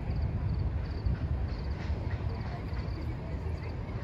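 Crickets chirping in short, evenly repeated trills, about two a second, over a low steady rumble.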